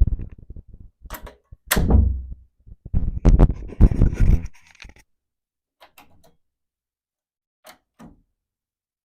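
Heavy wooden door on a metal frame closing, with its metal knob and latch clicking. A click comes about a second in and a firm thud about two seconds in. A longer cluster of thuds and rattling follows around three to four seconds, then a few faint latch clicks later on.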